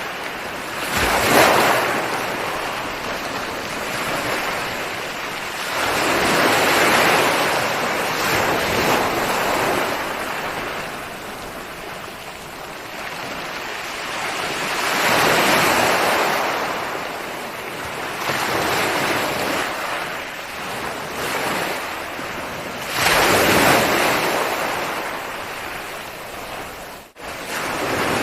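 Ocean waves breaking and washing up a shore, swelling four times several seconds apart over a steady surf wash. The sound cuts out for an instant near the end.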